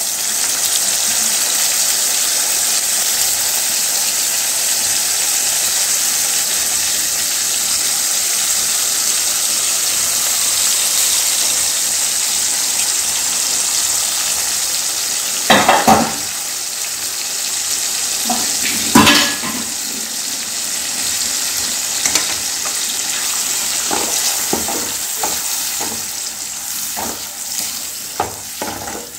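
Onions and capsicum sizzling in an aluminium kadai as tomato paste goes in, a steady hiss that eases off a little near the end. A steel ladle knocks against the pan twice around the middle, then in a run of lighter strokes near the end as the mixture is stirred.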